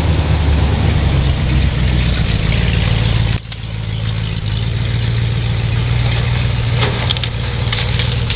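An engine idling steadily, with a low hum that drops abruptly in level about three and a half seconds in and then carries on quieter. A few sharp crackles near the end.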